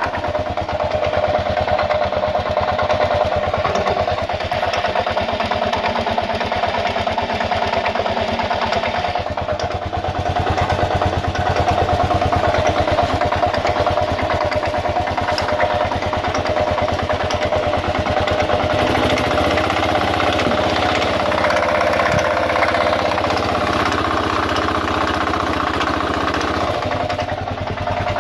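Kawasaki KLR650 single-cylinder four-stroke engine running with a clacking, grinding noise whose cause the owner cannot place. Its tone changes about two-thirds of the way through.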